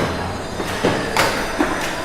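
Factory interior ambience: a steady machine hum and rumble with four sharp knocks in the second half, the loudest a little past a second in.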